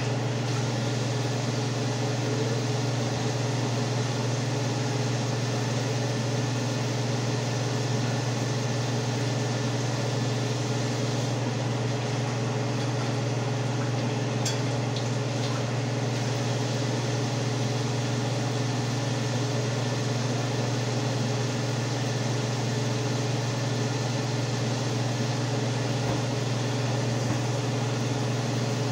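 Range hood exhaust fan running with a steady low electric hum.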